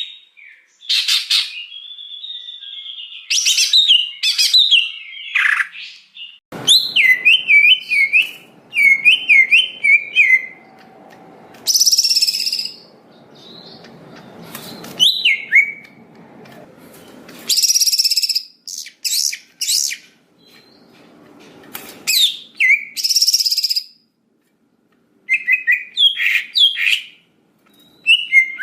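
Green leafbird (cucak hijau) singing: a varied run of quick whistled and warbled phrases, with short harsh rasping notes among them and brief pauses between bursts.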